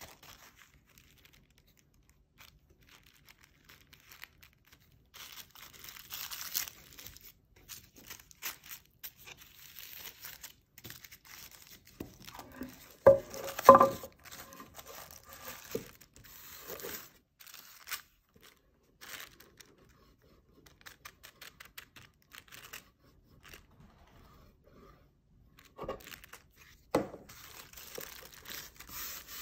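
Tissue paper rustling and crinkling as it is handled and folded by hand, in scattered bursts. About halfway through, a thin wooden board knocks a couple of times on the table, the loudest sound.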